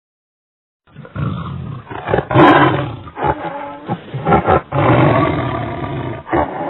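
A big cat roaring several times in a row, starting about a second in after dead silence.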